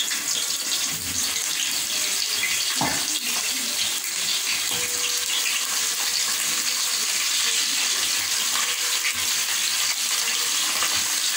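Sliced onions sizzling in hot oil in a metal pot, frying on a high flame: a steady hiss. A single knock about three seconds in, likely the wooden stirring spoon striking the pot.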